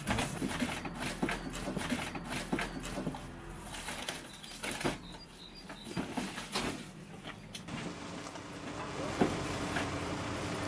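Irregular clicks and knocks of firefighting gear being handled on a fire engine, with a few faint bird chirps. Near the end a steady low hum sets in.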